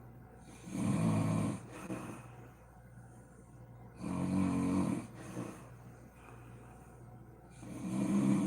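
A sleeping woman snoring: three snores about three and a half seconds apart, each lasting about a second.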